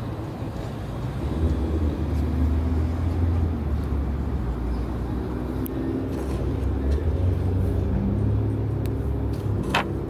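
Low, steady engine rumble that swells about a second and a half in and keeps drifting up and down in pitch. A single sharp click comes near the end.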